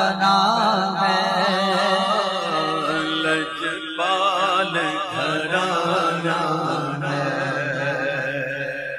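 A man singing a naat in a long, drawn-out ornamented phrase, his pitch wavering and bending without a break, easing off slightly near the end.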